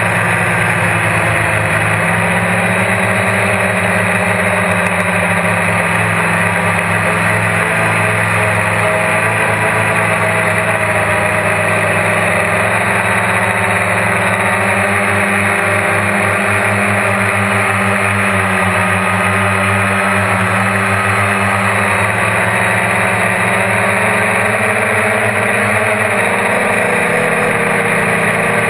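GAUI quadcopter's electric motors and propellers, heard from the camera mounted on the craft: a loud, steady drone whose pitch drifts slightly as it flies.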